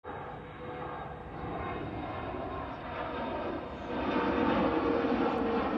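Bombardier CRJ regional jet climbing out after takeoff: the steady rushing drone of its two rear-mounted turbofan engines with a faint steady whine, growing louder about four seconds in.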